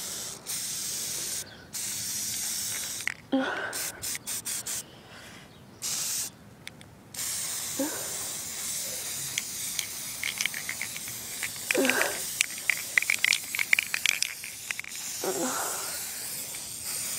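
Aerosol spray-paint can spraying olive green paint: a hiss that comes in short bursts and puffs at first, then longer passes. A run of crackling clicks sounds near the middle.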